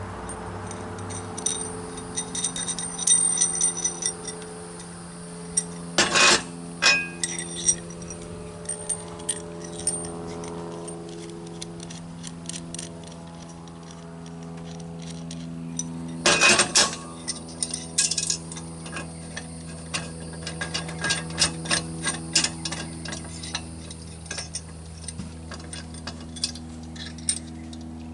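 Steel parts of a motorcycle tire change stand clinking and clanking as it is bolted together, with loud metal knocks about six and sixteen seconds in. A steady low hum runs underneath.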